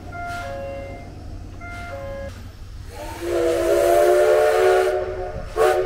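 A short electronic chime tune repeats, then about three seconds in the SL Taiju steam locomotive's whistle sounds a long blast of several pitches with hissing steam, followed by a short toot near the end.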